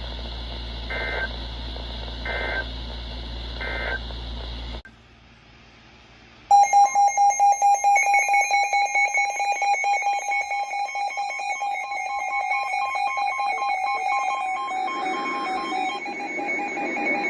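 Three short Emergency Alert System data bursts end the previous alert over a steady hum. After a brief near-silent gap, the two-tone EAS attention signal starts about six seconds in with a rapid pulsing, about four pulses a second, and runs on to near the end.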